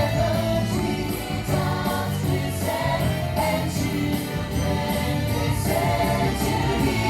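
Christmas parade music playing loudly: a choir singing over the band track, with jingle bells.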